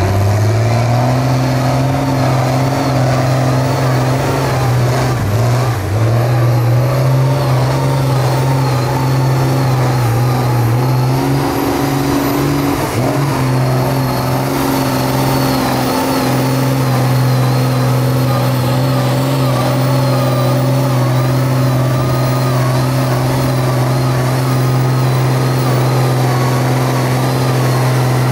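Mega mud truck's engine pulling steadily as the truck churns through a deep mud pit. Its pitch climbs about a second in, wavers briefly twice, then holds steady.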